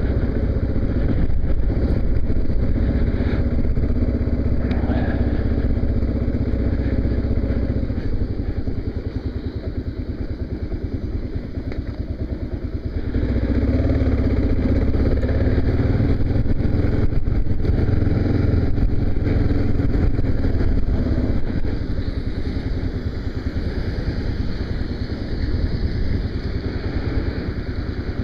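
Kawasaki KLR650's single-cylinder engine running under way. It drops back about eight seconds in, picks up again about thirteen seconds in, and eases off near twenty-one seconds.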